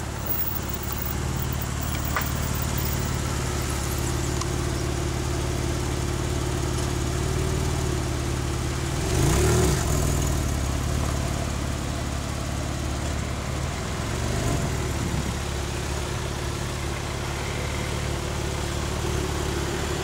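Porsche 911 Carrera 4S's flat-six engine idling steadily, with one short rev that rises and falls about halfway through and a smaller blip a few seconds later.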